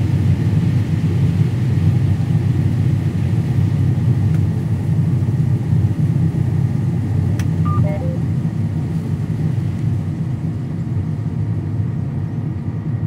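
Combine harvester running under way, a loud, steady low rumble. About seven and a half seconds in there is a click, followed by a brief run of short tones.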